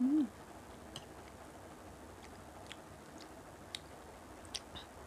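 Close-up eating sounds: a short closed-mouth "mm" hum right at the start, then a few faint, sharp mouth clicks while chewing spoonfuls of chana dal gravy.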